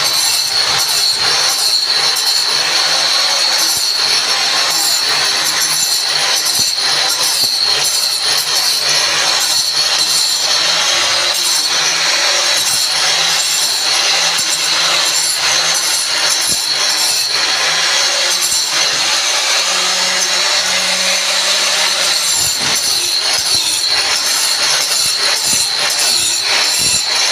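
Grinder working on a pillar: a steady high whine over a rough, grating noise with many small clicks, running without a break.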